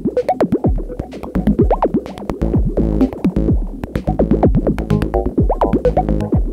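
Electronic synthesizer music: short notes that swoop up and down in pitch over clicking percussion and a deep, pulsing bass.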